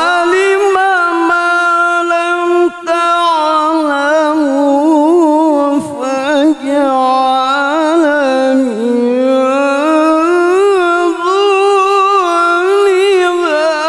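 A male qari chanting the Quran in melodic tilawah style into a microphone, holding long drawn-out notes decorated with wavering ornaments. The pitch dips about two-thirds of the way through and then climbs again.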